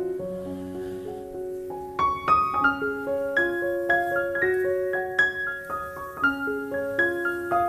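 Background piano music: a slow melody of held notes that grows louder and busier about two seconds in.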